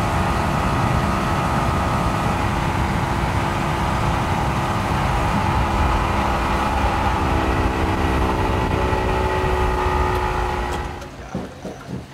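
An engine running steadily, with a slight shift in pitch about two-thirds of the way through, then fading out near the end.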